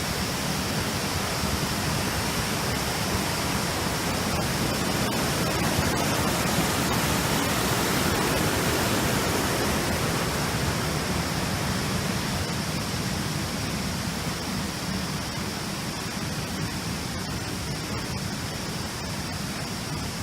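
Steady rushing of flowing mountain water, swelling a little near the middle and easing off again.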